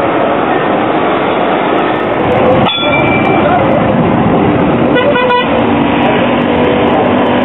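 Loud, steady city street noise, then a modern articulated tram passing close by. Short horn toots sound twice, about three seconds in and again about five seconds in.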